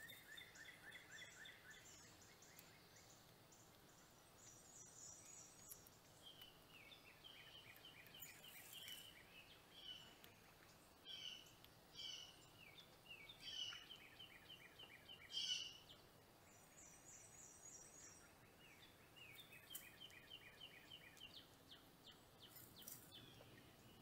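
Faint small songbirds calling: runs of quick, high-pitched trilled chirps, repeated throughout and loudest a little past the middle.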